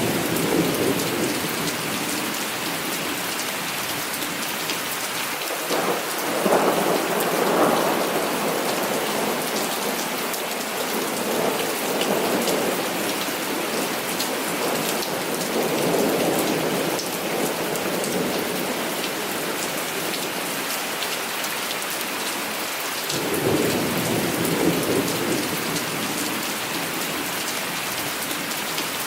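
Heavy rain falling steadily, with rolls of thunder rumbling in slow swells several times: at the start, about six seconds in, through the middle, and again about twenty-three seconds in.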